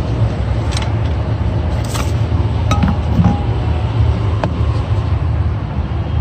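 A steady low rumble, with a few light clicks and a clink as the number plates and items in a car boot are handled.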